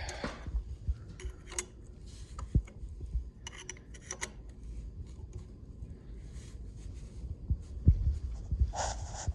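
Hand tools working on the bolts of a turbocharger's housing: scattered sharp metal clicks, with a quick run of clicks around four seconds in, over low bumps of handling. A brief louder rustle comes near the end.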